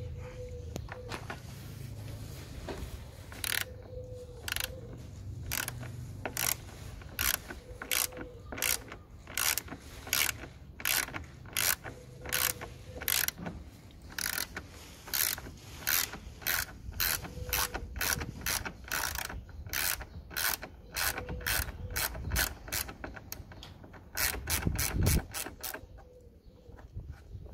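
Socket ratchet wrench clicking as it turns a headlight mounting bolt: a long run of sharp ratchet clicks, about two to three a second, coming faster for a couple of seconds near the end.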